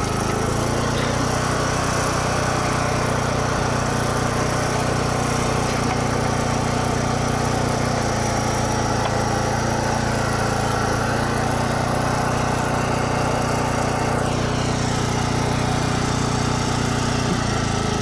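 Small petrol generator engine running steadily at constant speed, powering the pipe-welding equipment.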